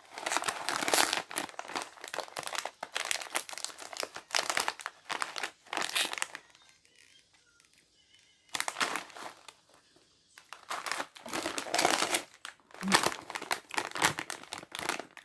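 Plastic snack bags crinkling and rustling as they are handled and lifted out of a cardboard box, in irregular bursts with a quiet pause of about two seconds about halfway through.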